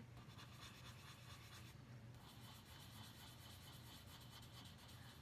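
Faint scratching of a pencil shading on paper, a little stronger from about two seconds in, over a low steady hum.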